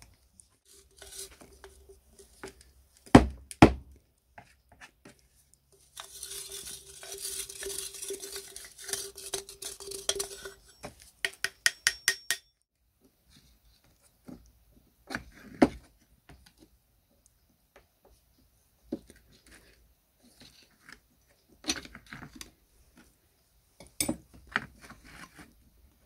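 Steel parts of a door closer being taken apart by hand: clinks and knocks of washers and tools on metal, with two sharp knocks about three seconds in. From about six seconds there are a few seconds of scraping, then a quick run of clicks, and scattered taps and clinks after that.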